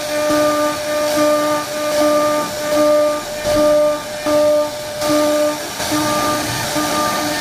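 CNC wood-carving router running, its drive motors whining in short, evenly repeated pulses a little under twice a second, over the steady hiss of the cutting spindle.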